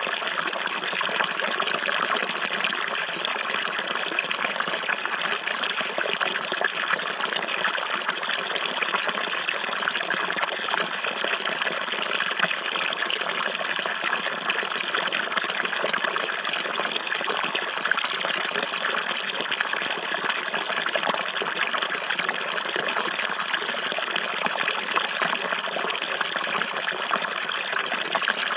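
Running water flowing and trickling in a steady, unbroken rush.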